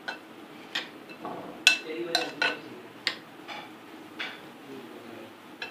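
A spoon clinking and scraping against a bowl as beaten egg and milk-soaked roti pieces are stirred together, with about nine irregular sharp clinks.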